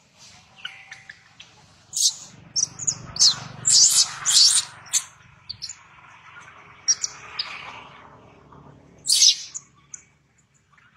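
Baby macaque screaming in a run of short, shrill, high-pitched squeals, densest a couple of seconds in and again about nine seconds in. It is an infant in distress while its mother presses down on it.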